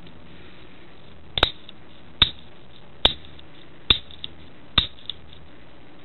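Shimano trigger shifter with its cover off, clicked through its gears by hand: five sharp clicks, a little under a second apart. The ratchet pawl is now catching the teeth and indexing properly.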